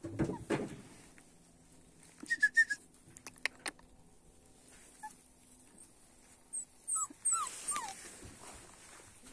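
Puppies whimpering as they play: a few short high squeaks about two seconds in, and three short falling whines near the end. A low scuffle sounds right at the start, with light scratching and clicks between the calls.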